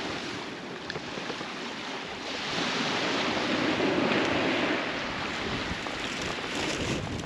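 Ocean surf washing against a rocky shore. A wave surges louder a couple of seconds in and then recedes, with some wind buffeting the microphone.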